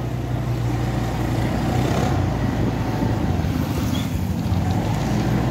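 Motorcycle engine running steadily as the bike is ridden along a road.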